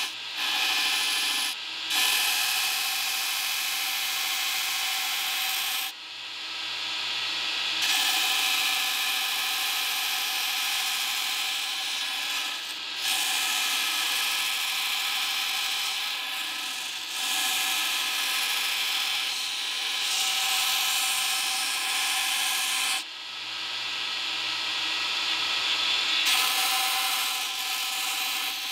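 Belt grinder grinding the outline of a thin steel knife blank pressed edge-on against the running abrasive belt. The steady rasp of steel on the belt sits over the grinder's whine, and it eases off a few times when the blade is lifted away: briefly near the start, about six seconds in, and again past the twenty-second mark.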